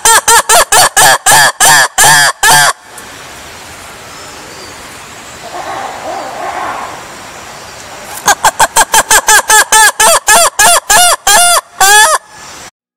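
Black-and-white ruffed lemur calling: a loud, rapid series of calls at about four a second. The calls stop just under three seconds in, a fainter call comes through in the pause, and a second run of calls lasts about four seconds before breaking off near the end.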